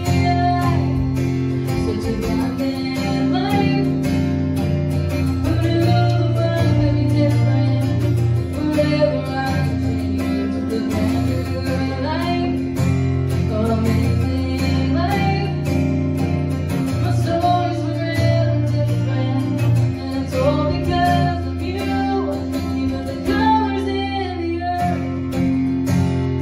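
A woman singing to her own strummed acoustic guitar, a live song performance.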